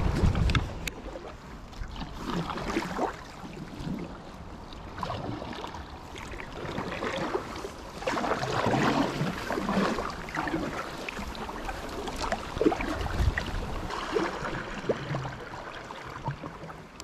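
Paddle strokes from an inflatable kayak: water splashing and trickling in irregular swells every few seconds. A brief low rumble of wind on the microphone at the start.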